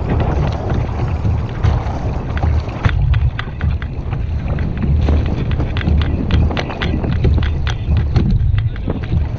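Wind buffeting the microphone with a heavy low rumble. From about three seconds in, a run of quick clicks comes from the fishing reel as a fish is played on the bent rod.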